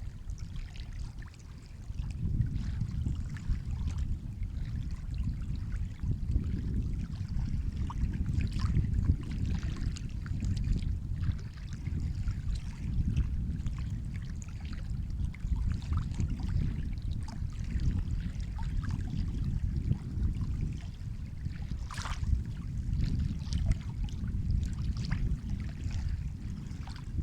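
Sea water washing and lapping, a continuous low rumble with small scattered splashes and one sharper splash near the end.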